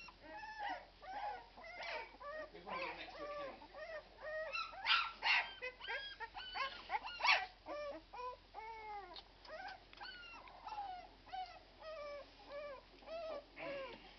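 A litter of 12-day-old Irish red and white setter puppies whimpering and squeaking: many short rising-and-falling cries overlap, with louder cries about five and seven seconds in.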